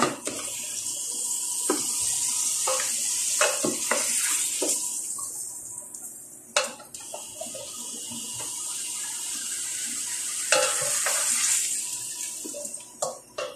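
Pork pieces sizzling in hot oil in a large stainless-steel pot as they are stirred with a wooden spatula, which knocks against the pot now and then. The sizzle swells twice, with a short lull midway, and fades near the end.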